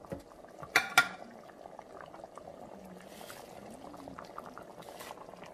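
Pot of mung bean soup boiling on an electric stove, a steady bubbling with small pops. Two sharp knocks come about a second in.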